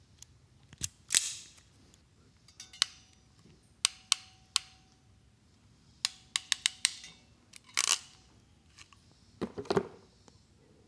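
Sharp clicks and metallic clinks of hand tools and small parts being handled during wiring work, about a dozen spread irregularly, some leaving a brief ring, the loudest about a second in.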